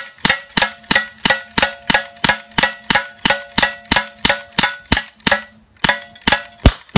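BB pistol fired in rapid succession, sharp shots at about three a second, some twenty in all, with one brief pause near the end before the last few.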